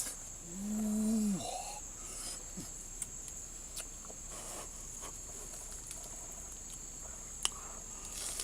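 Steady high-pitched buzz of rainforest insects. Early on there is a brief pitched voice-like sound about a second long, and a few faint ticks later.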